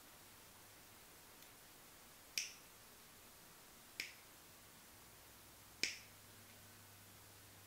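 Needle-nose pliers squeezing the metal contact pin of a Gateron mechanical keyboard switch to thin it: three sharp clicks, spaced about a second and a half apart, as the jaws close on the pin.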